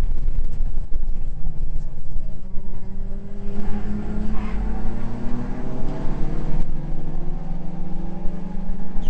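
Mitsubishi Lancer Evolution VII's turbocharged four-cylinder engine heard from inside the race car's cabin under hard acceleration. The note drops with an upshift about a second in, then climbs steadily as the revs build.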